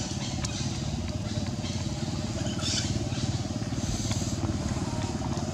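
A small engine running steadily at low speed, a continuous low rumble. A few brief high-pitched squeaks or chirps sound over it, about 2.7 and 4 seconds in.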